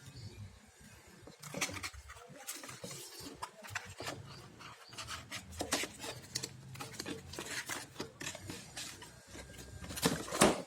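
Hands handling hard plastic and metal parts: a run of irregular clicks, taps and short scrapes, with the loudest rattle of clicks near the end.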